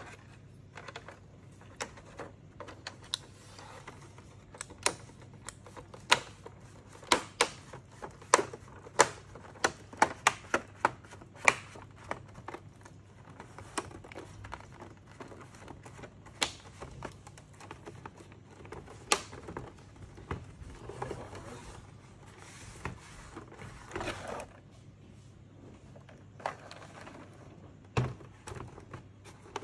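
Plastic snap-fit clips of an HP E202 monitor's front bezel clicking into place as the bezel is pressed onto the frame: a quick run of sharp clicks for several seconds, then fewer, scattered clicks.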